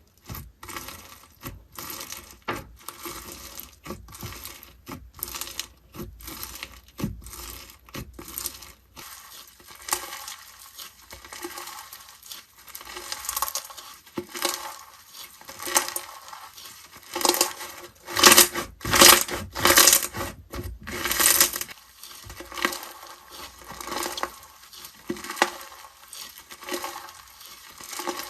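Slime being handled, squeezed and pressed, giving a dense run of irregular crisp crackles, clicks and pops. It grows louder a little past halfway, then eases off.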